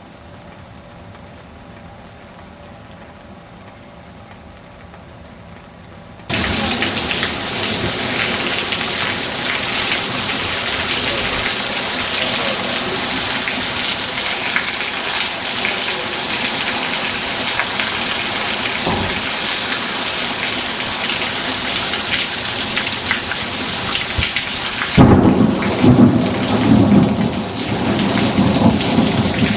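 Heavy rain pouring down, starting suddenly a few seconds in after a faint hiss. Near the end a sharp thunderclap breaks in and rumbles on under the rain.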